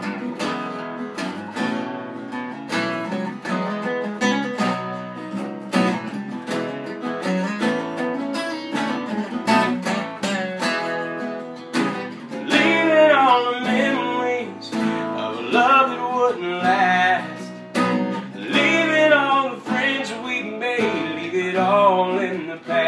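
Three acoustic guitars strumming an instrumental break in a country song, with an even strummed rhythm. About halfway through, a voice comes in singing over the guitars.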